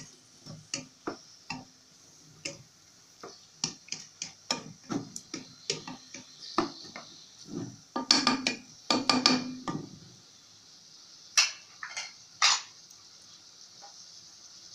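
Wooden spatula scraping and tapping against a stone-coated non-stick pot while chopped tomato, onion and peppers are stirred, over a steady frying sizzle. The stirring is busiest about eight seconds in, then thins to a few single knocks.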